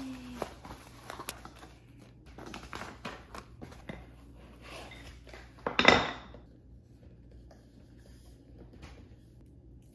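Cardboard box, foam packing and wooden side-table parts being handled on a hardwood floor during unboxing and assembly: scattered taps, knocks and rustles, with one louder clatter about six seconds in, then only faint small clicks.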